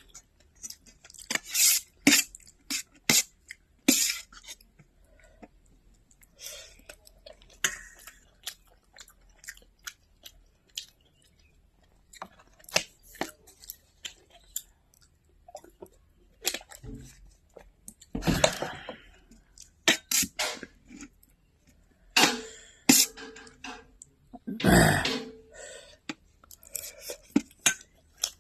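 Close-miked chewing and mouth sounds of a person eating: irregular wet smacks and clicks, with two louder, longer bursts of eating noise in the second half.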